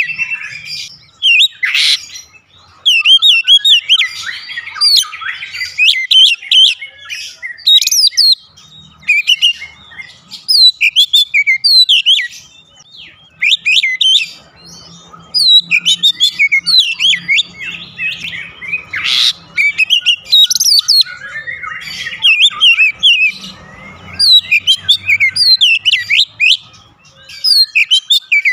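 Oriental magpie-robin (kacer) singing: loud bursts of quick, varied whistled notes and chirps sweeping up and down, broken by short pauses.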